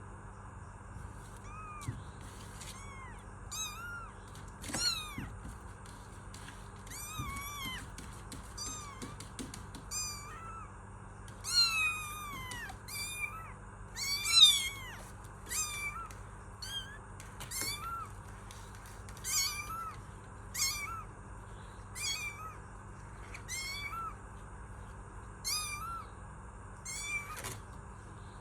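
Kitten meowing again and again: short high-pitched mews about once a second, each rising and falling, a few louder and longer ones near the middle.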